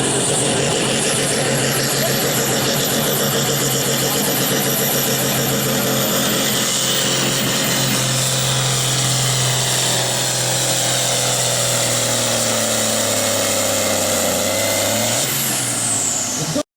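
4.5-tonne sport-class pulling tractor's engine held at high revs under load during a pull, a steady loud drone with a high whine above it. Near the end the pitch shifts, then the sound cuts off abruptly.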